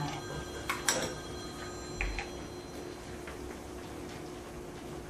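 A few light clinks and a soft knock as a small glass jar and a glass bowl are handled while caramel sauce is poured, over a steady faint hum.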